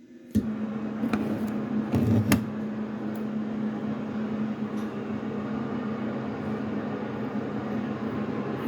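CB radio receiver hissing with open-band static and a steady hum, coming on just after the start, with a few sharp crackles in the first couple of seconds: no station answering the call.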